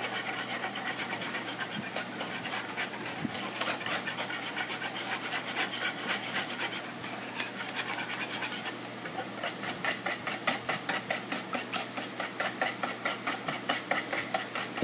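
Whisk beating a batter in a mixing bowl, scraping against the bowl in rapid, rhythmic strokes that grow steadier and more even in the second half.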